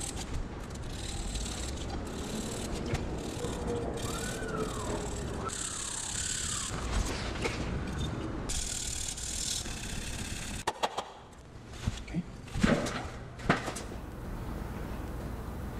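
Hand-sanding a repaired glazed ceramic bowl: sandpaper rubbing on the surface in uneven strokes, then a few sharp knocks near the end.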